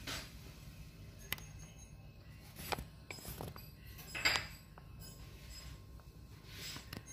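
A few light, sharp clicks and clinks over a low steady background hum; the loudest comes about four seconds in.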